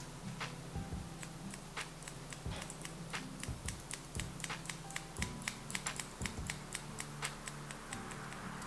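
Hair-cutting scissors snipping through the ends of a section of wet hair: a quick, uneven series of short, sharp clicks, about three or four a second.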